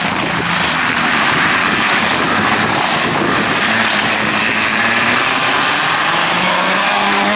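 Renault Clio rally car's engine running hard as it approaches, loud and steady, under a thick wash of tyre and gravel noise from the muddy road surface.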